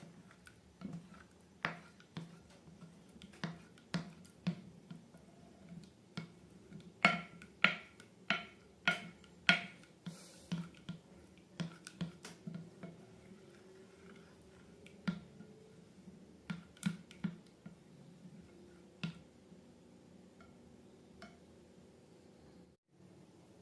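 Slime being worked by hand, giving irregular sharp pops and clicks. They come thickest about a third of the way in and thin out toward the end.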